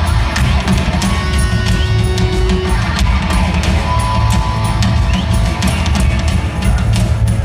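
Live rock band playing loudly, with a busy drum kit and sustained electric guitar notes over a heavy, boomy bass, heard from the audience in a concert hall.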